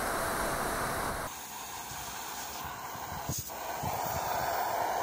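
A heat gun blows steadily, then after about a second a steady hiss of pressurised beer and gas escaping in fine jets through the overheated wall of a PET beer keg as it deflates. A single light knock comes about three seconds in.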